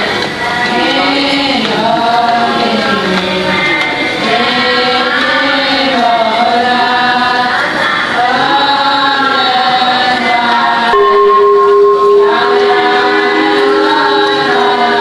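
Voices singing a melodic chant with music, the pitch lines gliding up and down; about eleven seconds in, a steady held tone joins under the singing.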